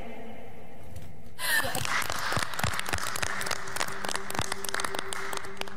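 Applause breaks out about a second and a half in, after a brief lull, and keeps going, with a low steady tone underneath.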